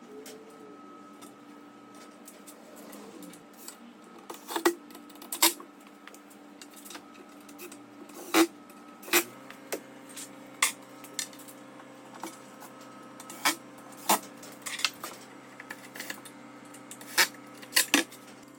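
Irregular small metal clicks and taps as screws and a cabinet door handle are handled and fitted, over a low steady hum.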